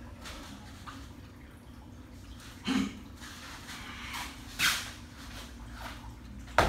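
Movement sounds of a barefoot Chen taijiquan practitioner doing Pao Chui (Cannon Fist): short, sharp bursts from feet striking and sliding on foam mats and clothing snapping with explosive strikes, three loud ones about two seconds apart, over a steady low hum.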